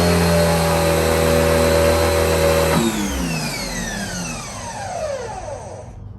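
Electric pressure washer's motor and pump running steadily while the hose is primed, then cutting off about three seconds in, its whine falling steadily in pitch as the motor winds down to a stop.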